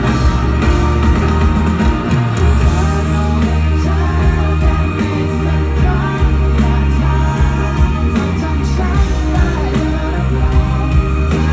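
Live rock band playing: drums, bass and guitars at full volume, with singing over them.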